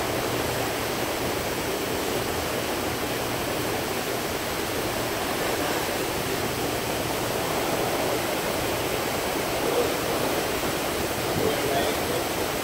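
Steady rushing of sea water along the hull of a cruise ship under way.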